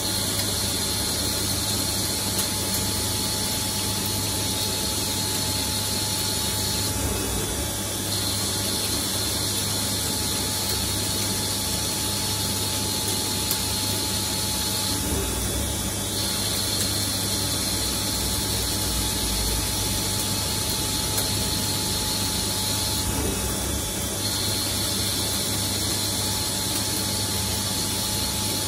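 CNC lathe turning steel, running steadily with a machining noise and a high whine that breaks off for about a second every eight seconds in a repeating cycle.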